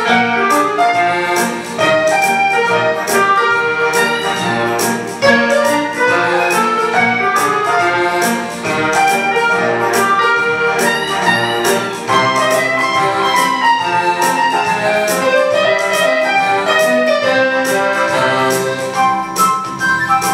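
Two electronic keyboards, a Yamaha and a Casio synthesizer, playing a piece together: a synthesized melody over chords with a steady drum-machine beat.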